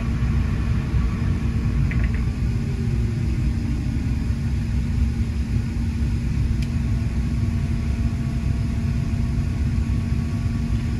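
Steady low rumble with a constant hum, the cabin noise inside an Airbus A350-900 airliner.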